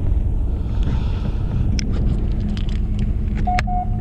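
Fishing boat's engine running with a steady low rumble, with a few light clicks and two short electronic beeps about three and a half seconds in.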